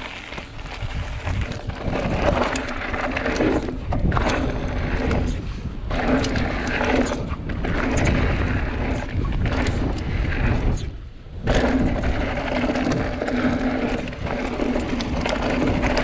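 Mountain bike riding a dirt trail: tyres rolling over packed dirt and wind rushing across the camera microphone. It is a steady rumble with a few short lulls, the deepest about eleven seconds in.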